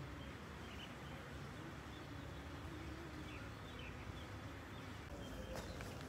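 Quiet outdoor ambience: a steady low rumble and hiss with faint bird chirps, and a couple of small clicks near the end.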